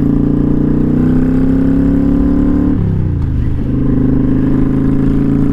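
Kawasaki Vulcan 900 Custom's V-twin engine running under way, its pitch rising slowly, then dipping briefly about three seconds in before holding steady again.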